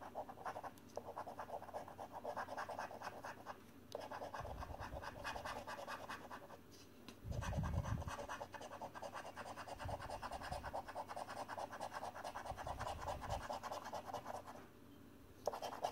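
A £2 coin scratching the latex coating off a paper scratchcard, in quick rasping strokes. The strokes come in runs broken by a few short pauses.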